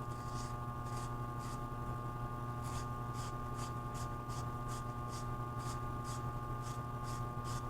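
Pipe being scrubbed clean by hand with an abrasive before soldering: short rasping back-and-forth strokes, a few slow ones at first, then about three a second.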